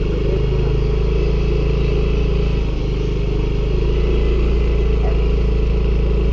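Small motor scooter's engine running steadily at low speed while being ridden, with a steady low rumble.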